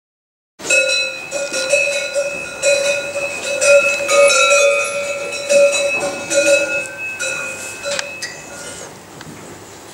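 Cowbells on dairy cows ringing and clanging as the cows move their heads, many overlapping metallic tones and strikes. It starts abruptly just under a second in and thins out toward the end.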